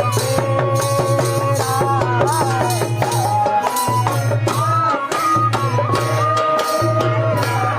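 Uttarakhandi Holi folk music with a steady hand-drum and rattle beat under a sliding melodic line and a deep bass. The bass drops out briefly a few times.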